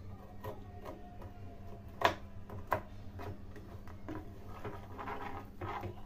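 Spoon stirring and pressing sugar in a pan as it melts for caramel: scattered light taps and scrapes, with two sharper clinks about two seconds in. A steady low hum runs underneath.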